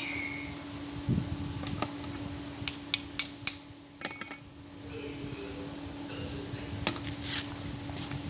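Sharp clinks and taps of hard objects knocking together: single ones about a second in and near the end, and a quick run of four in the middle, one of them ringing briefly. A steady low hum runs underneath.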